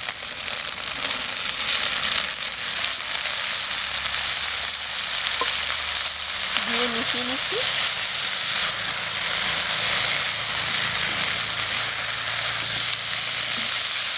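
Parboiled broccoli, cauliflower and carrot frying in hot oil in a non-stick wok, a steady sizzle while a wooden spatula stirs them through the chicken and onion.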